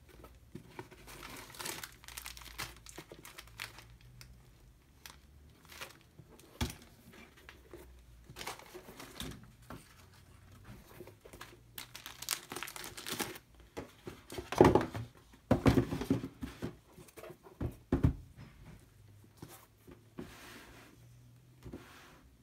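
Tissue paper and plastic packaging crinkling and rustling as new sneakers are handled and unpacked, with several louder knocks and rubs in the second half.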